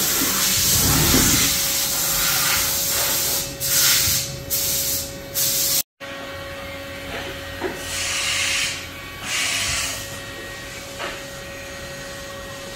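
Haas UMC 750 five-axis vertical machining center running with its trunnion table tilting: repeated bursts of hissing inside the enclosure over a steady machine hum.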